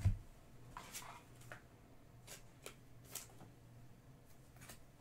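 Trading cards and cardboard hobby boxes being handled on a tabletop: one soft low thump at the start, then scattered light clicks and rustles of cards.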